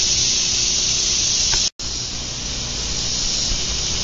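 Steady outdoor background hiss with a faint low hum beneath it, cut to silence for an instant just under two seconds in.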